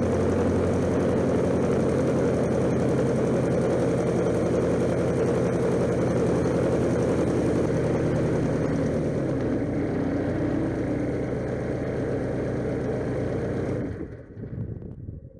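Velocity SE's pusher engine and propeller idling steadily, then shut down about fourteen seconds in and running down to a stop.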